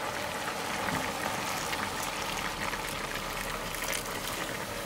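Hot water poured into a hot wok of rice over lamb fat and carrots, bubbling and crackling steadily as it meets the hot pan: the dish turning from frying to boiling.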